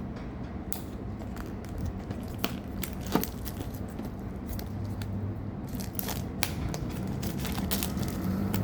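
Earbuds box packaging being opened by hand: irregular tearing, crinkling and rustling with scattered clicks, and a sharp click about three seconds in.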